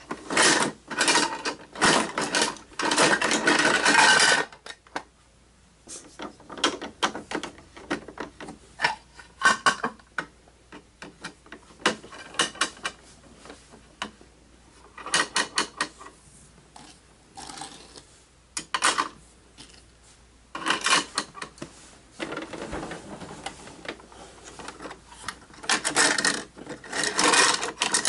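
Plastic clicking, rattling and scraping from a hand working a toy garbage truck's rear loader and small plastic bins, in irregular spells with brief pauses between them.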